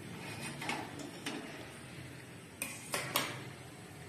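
Stainless-steel kitchen utensils clinking against a steel pan: a few separate metal clinks, then three in quick succession near the end.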